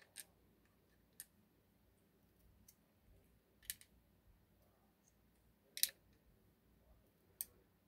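Light, sharp metallic clicks as the discs of a disassembled Abloy Exec disc-detainer lock are slid off the core with a pick and set down in a tray. About six separate clicks, the loudest about two-thirds of the way in.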